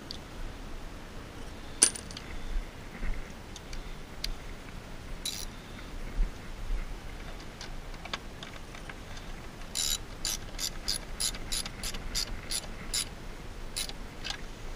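A hand socket ratchet clicking in a quick run of about a dozen strokes, some three or four a second, in the second half, as it tightens the clamp nut on a battery terminal. Before that, a few scattered metal clinks of tools being handled.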